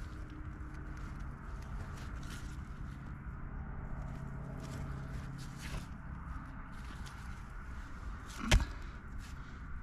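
Gravel and loose shale crunching and scraping as a heavy rock block is lifted and turned by hand, with scattered small clicks of stone, over a steady low hum. A single sharp knock comes about eight and a half seconds in.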